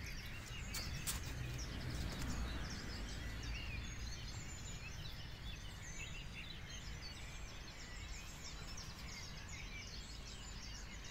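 Many small birds singing and chirping at once, a dawn chorus, over a steady low rumble of wind or distant traffic. A couple of faint clicks about a second in.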